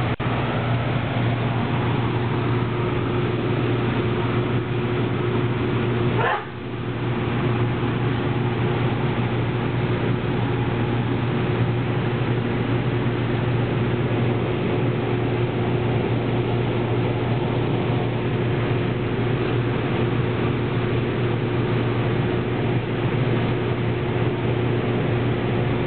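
Steady running noise inside a moving light-rail car, with a low hum and a steady whine. The noise dips briefly about six seconds in.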